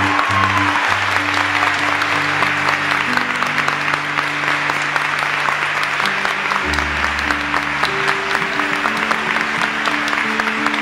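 A crowd applauding steadily over instrumental music with held, slowly changing notes.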